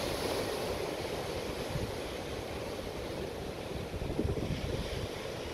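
Sea surf breaking and washing over coastal rocks in a continuous rush, with wind buffeting the microphone.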